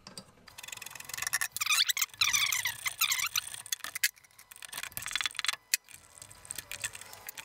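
Brake line flare nuts being unscrewed from a brake master cylinder with a spanner: metal-on-metal squeaking and scraping, with squeals that bend up and down about one and a half to three seconds in, then scattered clinks of the metal tool.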